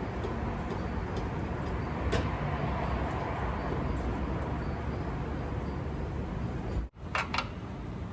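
Steady workshop background noise with a single sharp knock about two seconds in, then two quick metallic-sounding knocks near the end after a brief cut-out.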